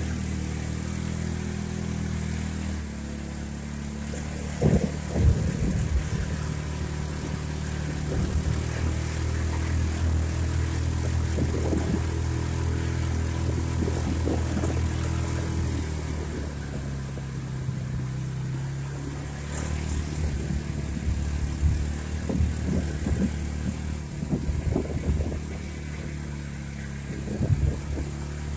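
Small off-road vehicle engine running steadily while driving over rough dirt trail, its pitch shifting a few times as speed changes, with occasional thumps from bumps in the ground.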